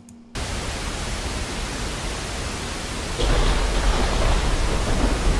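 Rain-and-thunder sound effects played back from an editing timeline. A steady hiss of heavy rain starts just after the opening. About three seconds in, a thunderclap comes in on top of it as a deep rumble, and the sound grows louder.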